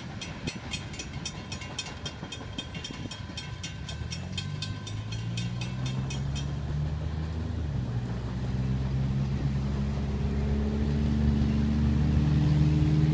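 Railroad crossing bell ringing in rapid, even dings as the gates rise, stopping about six seconds in. Road traffic then drives across the crossing, its engine hum growing louder toward the end.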